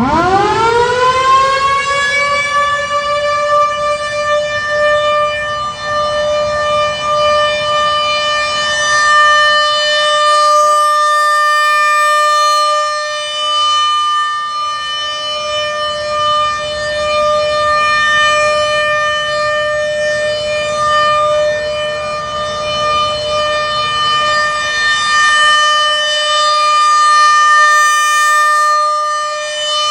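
A.C.A. PN-20 outdoor warning siren winding up from a low pitch to its steady Alert tone within about two seconds, then holding one pitch. It swells and fades slowly as it sounds. Near the end, another siren's lower steady tone joins it.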